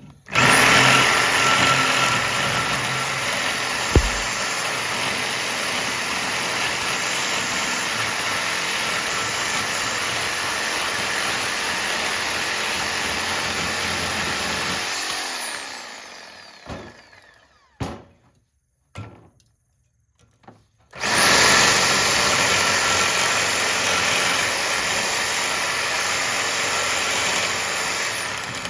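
Reciprocating saw cutting through an aluminum-copper radiator: it runs steadily with a high whine for about fifteen seconds and winds down. A few short knocks follow, then it starts up again about two-thirds of the way through and keeps cutting.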